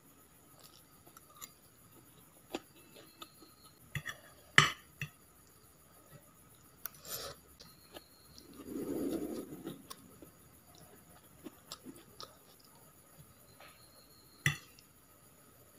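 Metal forks clicking and scraping against a ceramic plate as noodles are picked up, with a few sharper clinks, the loudest near the start and near the end. Quiet chewing in between, and a brief muffled mouth sound about halfway through.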